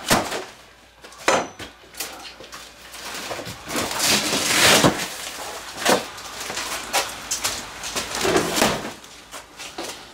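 Frozen ducks and geese being handled at an open chest freezer: scattered knocks and clunks, with a longer rustling stretch about four seconds in.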